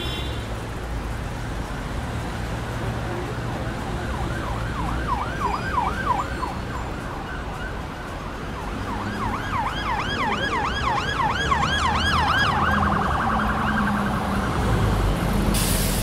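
Emergency-vehicle siren in rapid yelp, quick up-and-down sweeps several times a second, heard over a steady low rumble. It starts about four seconds in, breaks off briefly and resumes. Near the end it turns to a faster warble before stopping.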